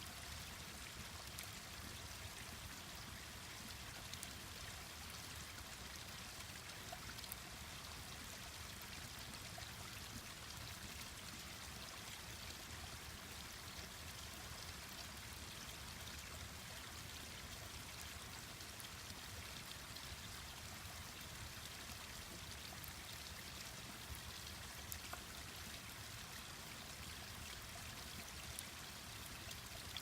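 Mountain stream rushing steadily, with a few faint crackles and pops from a wood campfire now and then.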